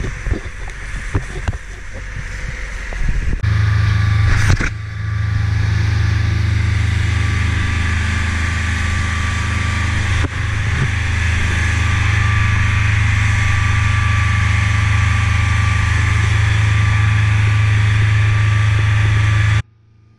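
A fishing boat's engine running steadily at speed, a deep, even hum, with water rushing past the hull. The first few seconds hold knocks and clatter on deck before the engine sound becomes loud and steady, and it cuts off suddenly near the end.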